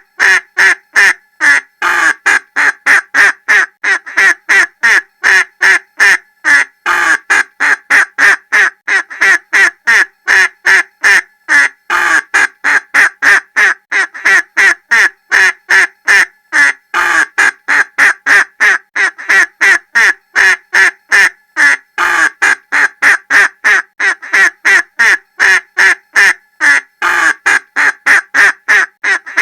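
Duck quacking in quick, steady repetition, about three quacks a second, with the same run of calls repeating every five seconds or so.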